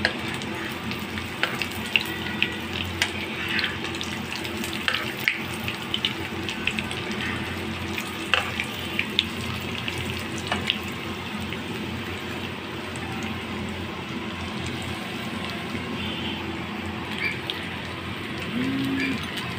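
Breaded chicken kebabs shallow-frying in oil on a low flame: a steady sizzle with frequent sharp crackles and clicks, more of them in the first half, as metal tongs turn the kebabs in the pan.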